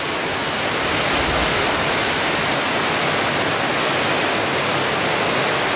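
Heavy rain pouring down in a storm, a loud, steady, even hiss.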